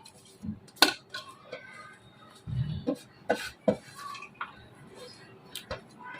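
Scattered light clinks and knocks of kitchen bowls and utensils being handled, with a soft low thud about two and a half seconds in.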